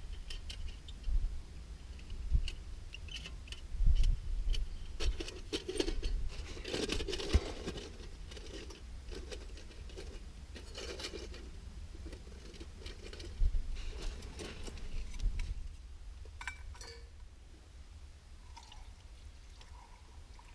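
Irregular metal clinks, scrapes and crunches of a metal Firebox camp stove and cup being handled and set up on rock, busiest in the first two-thirds and thinning out near the end, with wind rumbling on the microphone throughout.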